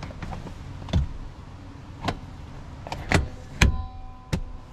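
Clicks and knocks of a pickup's rear bench seat cushion and its trim being handled, the loudest two close together about three seconds in, with a brief steady ring between the last two knocks.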